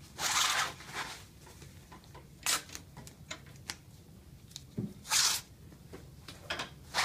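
Adhesive tape being pulled off the roll in several short rips, with egg-crate foam rustling as it is handled and taped down.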